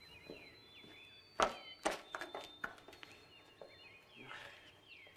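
Footsteps across a hard floor, a quick run of sharp steps about a second and a half in, with a few softer knocks later. Birds chirp in the background with short, falling calls repeated throughout.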